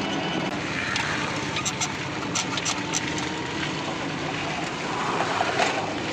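Steady running of a moving motor vehicle: a low engine hum under a noisy rush, with a few short light clicks about two to three seconds in.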